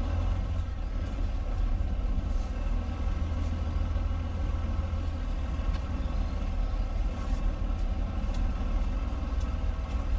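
Semi truck's diesel engine running at low revs, a steady low rumble while the tractor-trailer is slowly backed and straightened.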